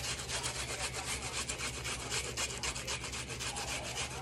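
Red onion being grated on a handheld metal grater: quick, even back-and-forth scraping strokes, several a second.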